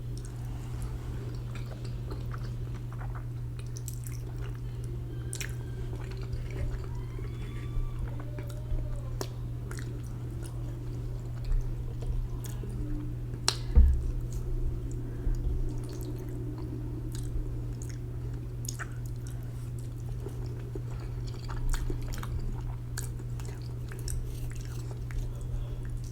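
Close-up chewing and mouth sounds of a person eating ramen noodles, with scattered small clicks, over a steady low hum. A single louder thump comes about halfway through.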